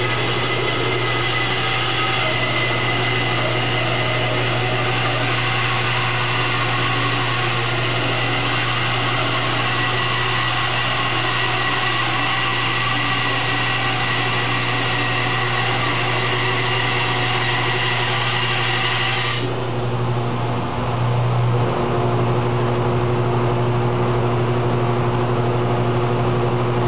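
Bandsaw running, its blade cutting down the seam between two rough-sawn boards held together, a pass to flatten their cupped faces. About twenty seconds in, the higher cutting sound stops abruptly and a steady hum carries on.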